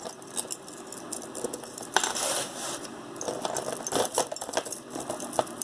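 Tangled gold-tone multi-strand necklace chains clinking and jangling against each other and other jewelry as they are worked loose by hand, a run of small metallic clicks with a brief rustle about two seconds in.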